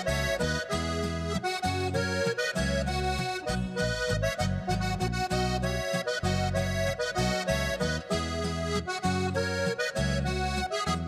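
Instrumental break of a Slovenian folk song: a diatonic button accordion plays over an upright bass keeping a steady, bouncing beat.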